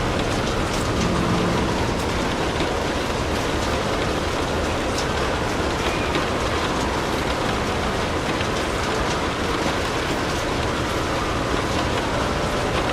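Steady rain, with a few faint crackles from a fireplace fire.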